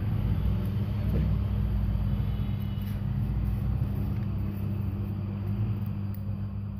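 A steady low machine hum, made of several level tones.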